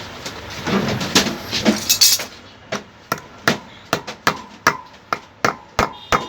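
A hammer tapping a motorcycle wheel bearing into its hub: after a couple of seconds of handling noise, about ten sharp metal strikes at a steady two to three a second, some ringing. The hub's bearing housing is worn loose, so the bearing is being seated with thin shims packed around it.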